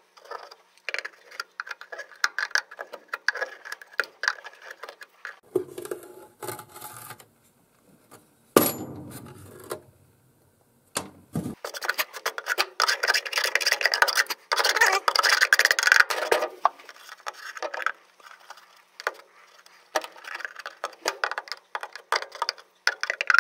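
Flathead screwdriver scraping and clicking in the O-ring groove of a gas furnace's draft inducer housing, prying out the old O-ring and scraping the groove clean. It makes scattered scratchy clicks, with a longer stretch of steady scraping just past halfway.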